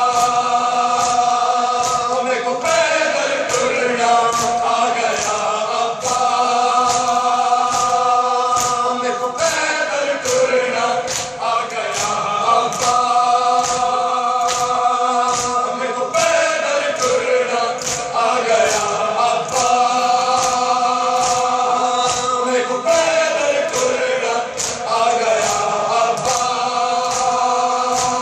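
A crowd of men chanting a Shia nauha (lament) in unison, long held lines that dip and rise, over a steady beat of matam: open hands striking chests in time.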